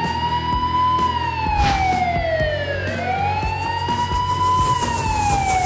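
Wailing emergency-vehicle siren, its pitch sliding slowly up, holding, then falling, twice over, above a steady low hum.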